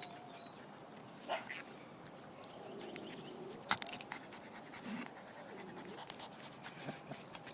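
Rottweiler puppies playing, with a few short low puppy vocalisations among scratching and clicking sounds. A sharp crackle a little over halfway through is the loudest sound.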